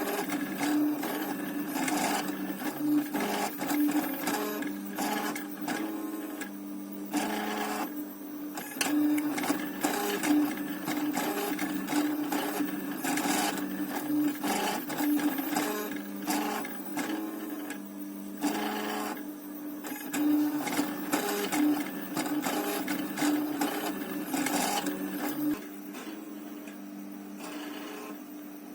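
Small stepper motors of a homemade 3D printer built from CD-drive mechanisms, buzzing and whining as the printer moves its axes. The pitch steps and pulses with each move, with brief pauses now and then, and it goes quieter near the end.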